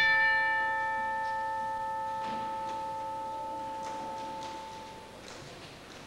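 Altar bell struck once at the elevation of the chalice, signalling the consecration of the wine. It rings out clearly and fades away over about five seconds, with a few faint knocks and rustles near the end.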